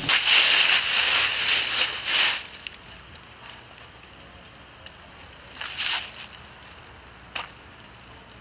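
A loud rushing noise for about two seconds at the start, then quiet outdoor air. Later a match is struck on its box with a short scratch, and a sharp click comes near the end.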